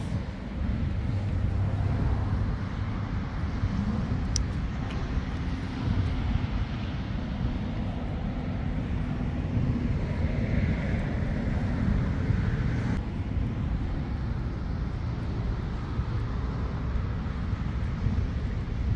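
Steady low outdoor rumble with no single clear source, and a faint steady hum through the middle of it.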